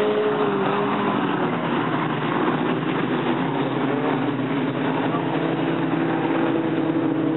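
Engines of several stock cars racing on a dirt oval, a steady mix of engine drone whose pitch shifts a little as cars come round and pass.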